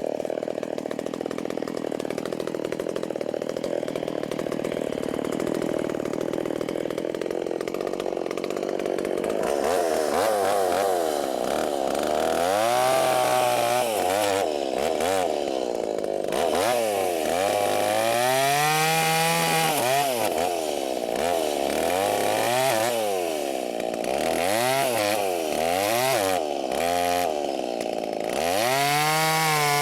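Small two-stroke chainsaw running steadily for the first third, then revving up and down again and again, its pitch rising and falling as it works through wood.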